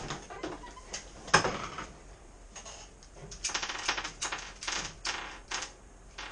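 Typing on a computer keyboard in irregular runs of key clatter, with a single sharp knock, the loudest sound, about a second and a half in.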